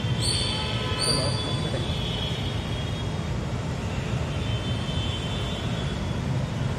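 Steady low rumbling background noise, with two brief high tones about a second apart near the start.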